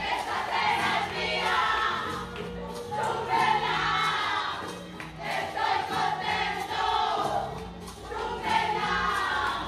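Music with a group of voices singing together over a bass line that steps from note to note.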